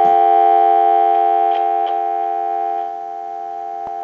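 Telephone dial tone from a line analyzer, heard off-hook in a Western Electric 554 rotary wall phone's receiver through an amplified pickup. It is a steady tone that drops in level about three seconds in, with a few faint clicks.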